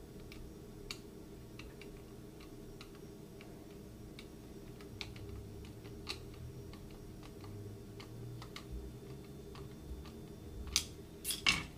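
Light, irregular clicks and taps of hands handling the rubber mask and small objects on a table, over a steady low hum, with a few louder clicks near the end.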